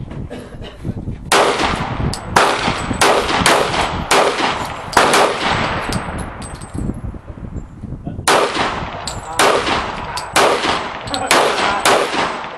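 Gunshots from a snub-nosed (2-inch barrel) .357 Magnum revolver firing .38 Special rounds, each a sharp crack that dies away quickly. They come in two strings of shots, spaced about half a second to a second apart, with a pause of about three seconds between the strings.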